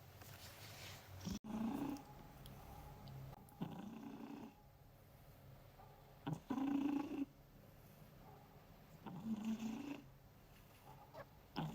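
Domestic cat snoring in its sleep: a short, low snore about every two and a half seconds, five in all, with quiet breathing between.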